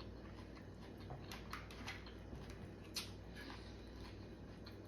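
Faint eating sounds: scattered small clicks and smacks of a person chewing, with one sharper click about three seconds in, over a low steady hum.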